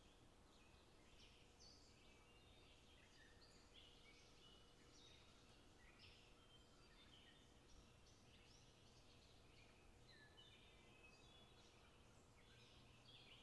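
Near silence, with faint bird chirps in the background, many short high calls.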